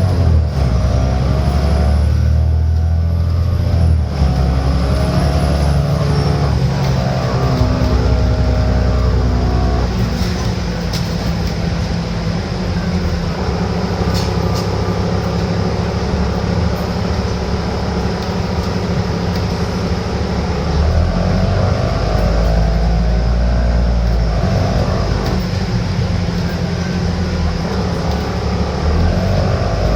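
Alexander Dennis Enviro500 double-decker bus's Cummins diesel engine and drivetrain heard from on board while driving, the engine note rising and falling as the bus speeds up and slows. These are the unusual running noises this bus is known for.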